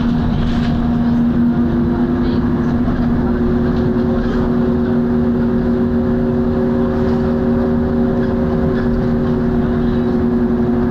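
Volvo B10BLE single-deck bus running, with its diesel engine and very loud cooling fan giving a steady, loud drone and hum. A higher tone joins about a second in, and another a few seconds later.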